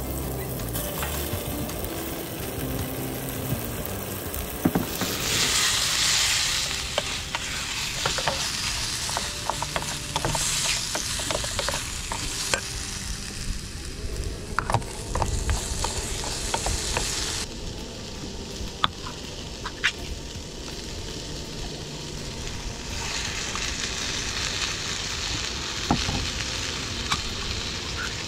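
Onions, tomatoes and garlic sizzling in a small stainless steel pan over a camping stove, stirred with a wooden spoon that clicks against the pan now and then. The sizzle swells about five seconds in and rises and falls after that.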